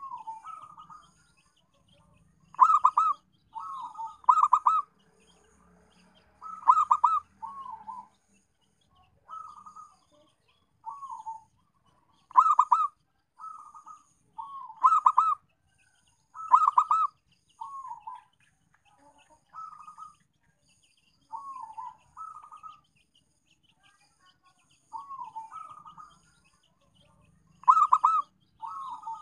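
Zebra dove (perkutut) cooing: short rolling, staccato phrases repeated about every two seconds, some phrases much louder than others.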